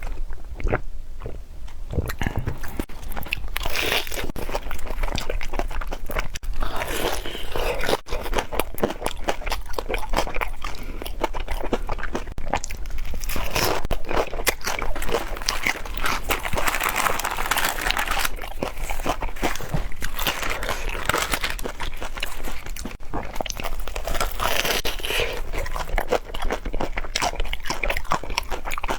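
Close-up crunching and chewing of deep-fried glutinous-rice-coated banana, the crisp fried shell crackling with each bite.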